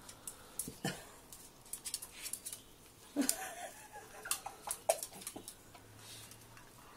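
Small terrier scrabbling and biting at a large marrow: scattered light clicks and taps of claws on the tiled floor and teeth on the marrow's skin.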